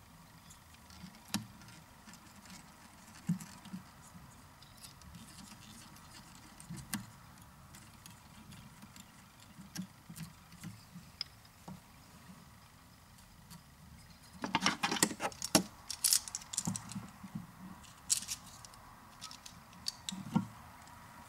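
Small clicks, taps and rustling of hands and tools working a deer-hair fly in a fly-tying vise, with a dense cluster of rattling clicks about two-thirds of the way through.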